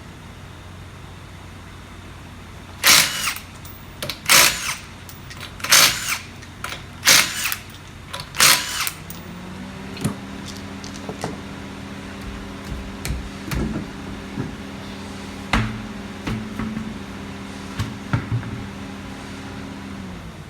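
Five short bursts of an impact wrench, about a second and a half apart, breaking loose a wheel's five lug nuts. After that a steady mechanical hum with a few clicks runs for about ten seconds and stops just before the end.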